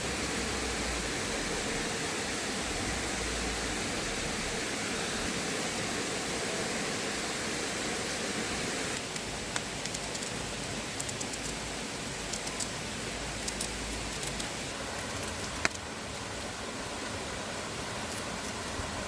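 Steady rushing of flowing river water. About nine seconds in the rush changes abruptly and grows a little softer, and scattered sharp ticks and crackles sound over it.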